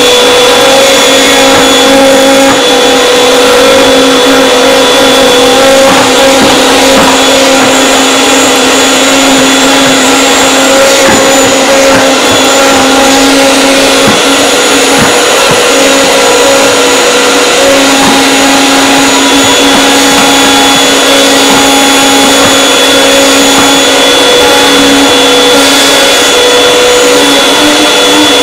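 Canister vacuum cleaner running steadily and loudly on carpet, its motor giving a constant hum with a high whine. Its pitch rises slightly near the end.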